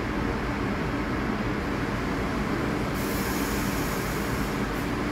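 R62A subway train on the 1 line running near the platform: a steady rumble and hum with a few low held tones. A high hiss comes in about three seconds in and lasts under two seconds.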